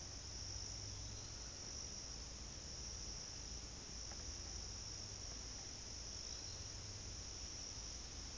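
Steady chorus of insects in woodland, a continuous high-pitched shrill with no breaks, over a low steady rumble.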